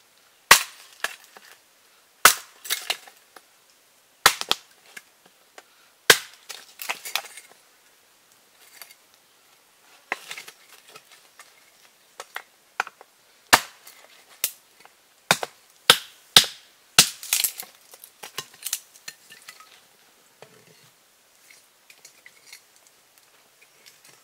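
A series of about twenty sharp cracks and knocks at irregular intervals, some in quick clusters, with a short lull in the middle and only faint small sounds over the last few seconds.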